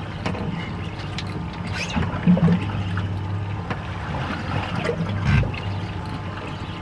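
Boat engine idling steadily, with water sloshing against the hull.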